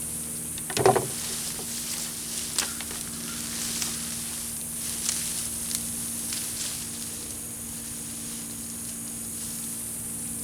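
Dry mulch and potato vines rustling and crackling as plants are pulled up by hand, with a louder rustle about a second in and a few sharp snaps later. A steady high insect drone and a low hum run underneath.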